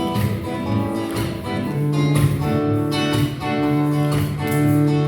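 Acoustic guitar strumming chords in a steady rhythm, the instrumental introduction to a song.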